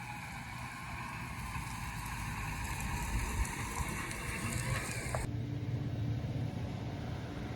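Combine harvester running steadily, a constant machine hum with a high whine over it. About five seconds in the whine drops away abruptly, leaving a lower, steady hum.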